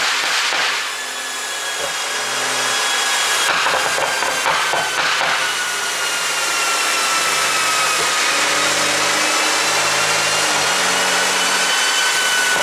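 BMW 640i Gran Coupe's turbocharged inline-six engine and exhaust running, with a high whine that slowly falls and then rises again. A few brief crackles come near the start and around four to five seconds in, the exhaust pops of its pop-sound tune.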